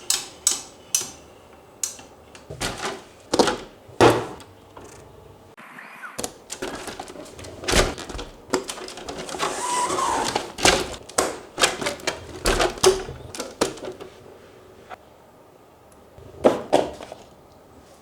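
Irregular clicks and clattering knocks of hard parts being handled and set down, typical of an RC car being worked on on an aluminium stand, with a brief rasping sound about ten seconds in.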